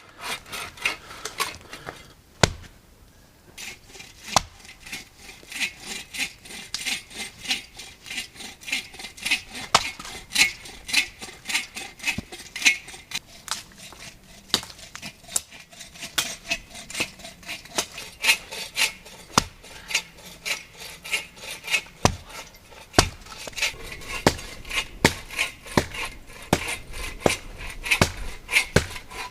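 A hand saw cutting through wood in steady back-and-forth strokes, about two a second, with a few sharper knocks now and then.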